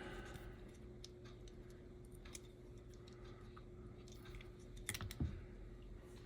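Faint, scattered clicks and light taps of tiny parts being handled while the brush barrels and pickup shoe springs are fitted into an HO scale slot car chassis, over a steady low hum. A few sharper clicks come about five seconds in, then a soft knock.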